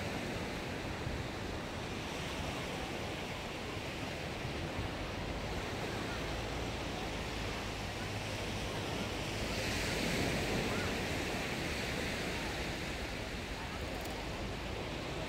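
Surf washing onto a sandy beach, mixed with wind blowing across the microphone: a steady rush that swells briefly about ten seconds in.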